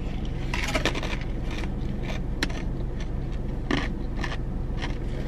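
A paper fountain-drink cup with plastic lid and straw being sipped from and handled: a few brief slurps, scrapes and clicks, over a steady low hum inside the car.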